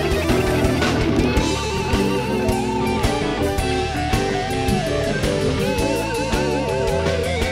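Live blues band playing: electric guitar lead with bent, wavering notes over steady drums.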